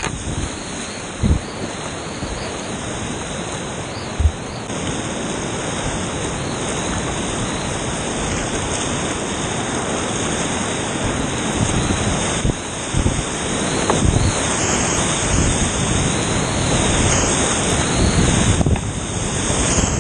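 Loud, steady rush of whitewater as the kayak runs through a rapid, heard from the boat itself, with a few short low thumps, the sharpest about four seconds in.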